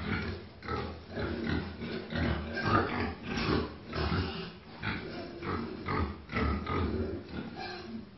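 Large white pig grunting over and over, about two short grunts a second.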